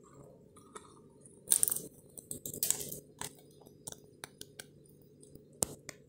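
African grey parrot eating sunflower seeds from a plastic cup, cracking the shells in its beak: a burst of sharp cracks and crunches about a second and a half to three seconds in, then scattered single clicks.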